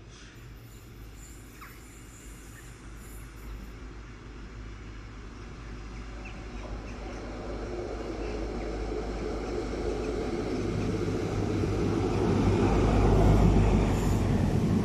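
ScotRail High Speed Train with class 43 diesel power cars approaching and running past, its engine and wheel rumble growing steadily louder to a peak as the leading power car and first coaches go by near the end.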